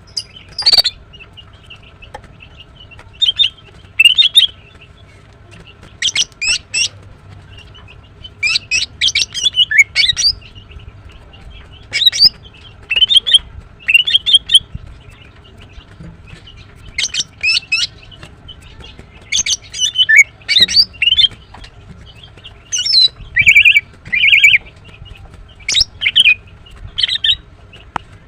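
Female greater green leafbird chirping: short clusters of sharp, high chirps and quick sweeping notes, repeated every second or two.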